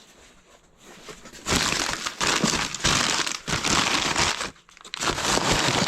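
Wrapping material crinkling and crumpling as it is handled, in two loud spells: it starts about a second and a half in, drops out briefly just before the five-second mark, then starts again.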